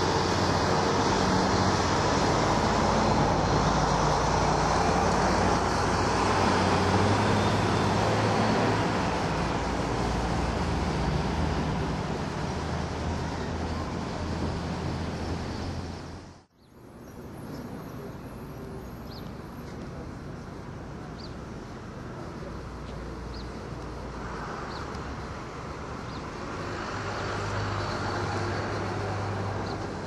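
Road traffic: a steady rush of car engines and tyres with a low hum. Partway through it cuts off suddenly and comes back quieter, then swells again near the end.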